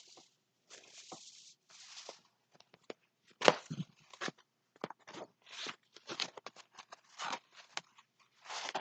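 Irregular crinkling and rustling of a rolled diamond painting canvas and its plastic cover being handled and unrolled, with a sharp crackle about three and a half seconds in.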